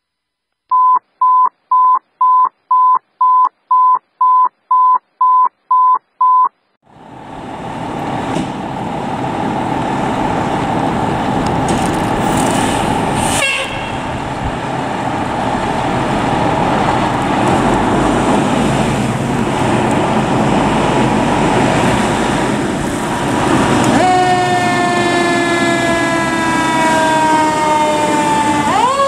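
About a dozen short electronic beeps at one steady pitch, roughly two a second. Then a fire truck's heavy engine and road noise build as it pulls out. From about 24 s a mechanical siren's tone winds slowly down in pitch, then spins sharply back up at the very end.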